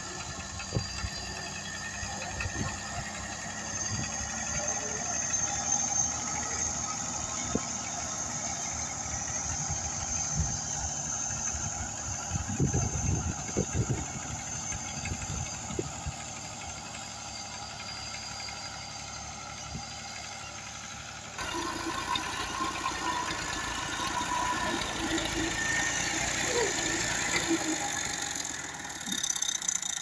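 Farm tractor engine running steadily, with a few knocks. The sound changes abruptly about two-thirds of the way through.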